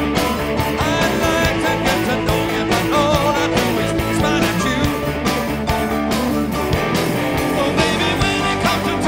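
Live rock band playing loud: electric guitars through stacked Marshall amplifiers, driven by drums with a steady beat.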